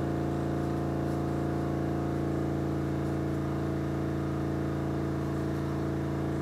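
Steady background hum made of several held low tones, unchanging in pitch and level.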